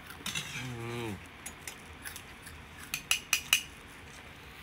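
A short humming 'mmm' with falling pitch from someone chewing, then a quick run of about four sharp clinks of oyster shells and tableware being handled, a little past halfway.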